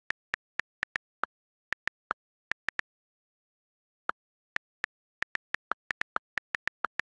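iPad on-screen keyboard key-click sounds as text is typed: a run of short, sharp ticks a few per second, with a pause of about a second in the middle and a few ticks slightly lower in pitch than the rest.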